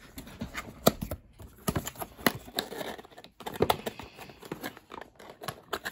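Hands opening a cardboard retail box: irregular clicks, scrapes and rustles of the box flap and packaging being pried and pulled.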